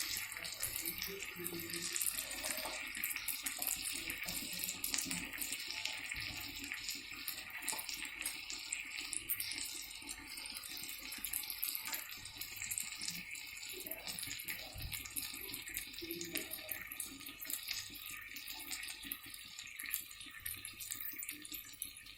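Marinated chicken skewers sizzling in oil on a flat tawa over a low flame: a steady crackling hiss that slowly gets quieter.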